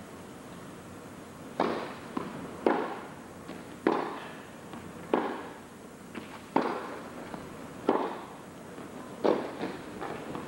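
Tennis rally: a serve about a second and a half in, then tennis balls struck by rackets in a steady back-and-forth, a sharp pock roughly every second and a quarter with fainter knocks between. Each hit rings briefly in the arena's echo.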